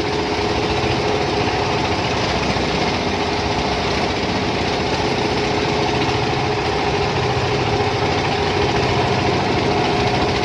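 Boat engine running steadily at a constant speed, with a continuous noisy rush around it.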